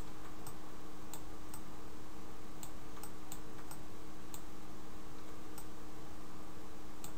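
Computer mouse clicking about a dozen times at irregular intervals, over a steady background hum.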